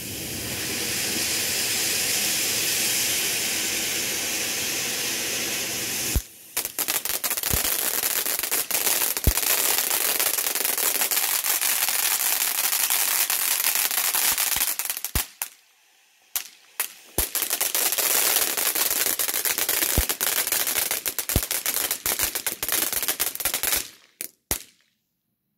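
A Taco Tuesday ground fountain firework hissing steadily, then about six seconds in switching to dense, rapid crackling with sharp pops. The crackling breaks off briefly about halfway, starts again, and dies out with a few last pops near the end.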